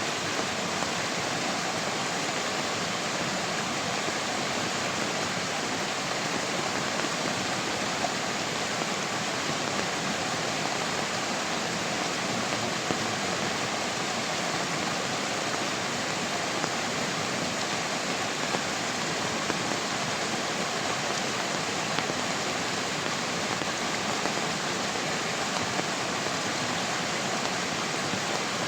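Steady, even rushing of water, with no change across the whole stretch.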